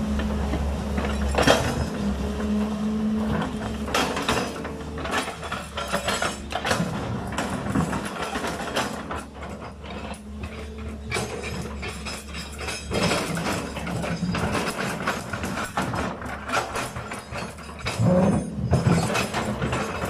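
Sumitomo SH210 hydraulic excavator's diesel engine running steadily, with repeated irregular metallic clanks and knocks from the machine at work, louder near the end.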